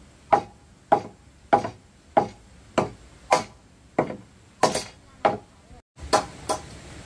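Steady, rhythmic blows of a hand tool on wood, about one every 0.6 seconds, each a sharp knock with a short ring. Near the end, after a brief break, two blows come closer together.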